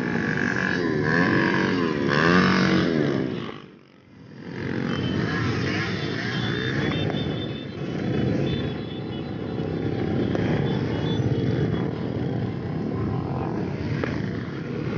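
Many motorcycle engines running as a crowded stream of bikes rides past. For the first three seconds or so a wailing tone rises and falls over and over. The sound dips briefly about four seconds in.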